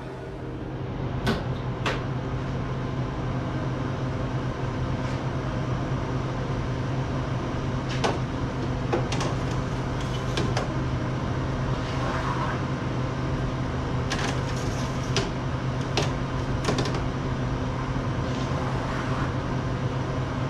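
Harvest Right freeze dryer humming steadily, its refrigeration running at chamber temperature, while metal trays of frozen food are slid onto its shelves with scattered clicks and clanks.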